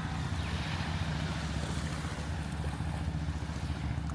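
Boat engine running steadily, a continuous low hum, with wind on the microphone.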